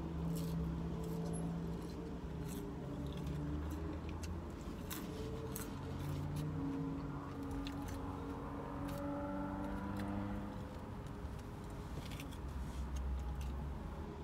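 Paper fast-food fry bag crinkling and fries being chewed, with small sharp clicks scattered through. Underneath is a steady low hum inside the car.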